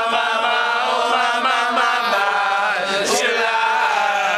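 Several men singing together, holding long drawn-out notes in a chant-like song.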